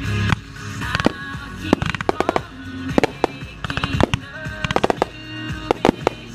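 Firework shells bursting, with quick runs of sharp crackling reports, over music playing.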